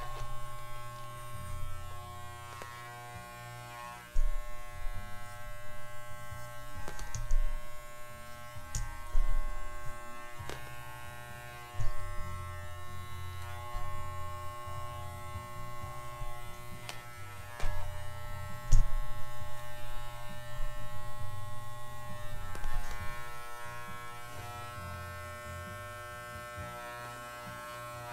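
Corded electric pet hair clipper running with a steady buzz, getting louder and softer as it is worked through a miniature schnauzer's fur, with several sharp clicks along the way. It settles steadier and quieter over the last few seconds.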